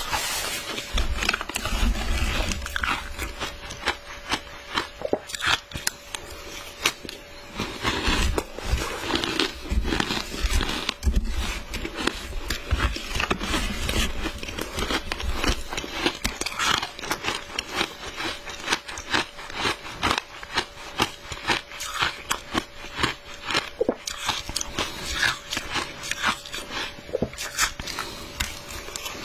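Ice being crunched and chewed, mouthful after mouthful of crushed ice coated in matcha powder, a dense run of crackling bites that goes on without a break.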